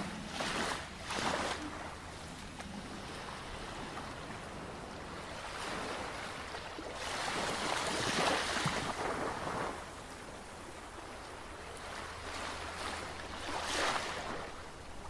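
Ocean surf sound: a rushing hiss that swells and recedes in several surges, the largest in the middle, like waves washing in and drawing back.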